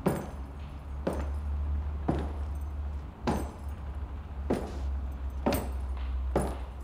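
Slow, even footsteps on a wooden parquet floor, about one step a second, each a sharp knock, over a steady low hum.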